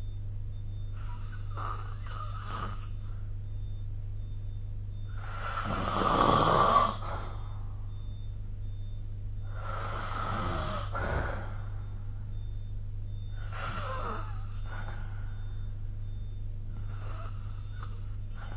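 Snoring: five snores about four seconds apart, the second the loudest, over a steady low hum.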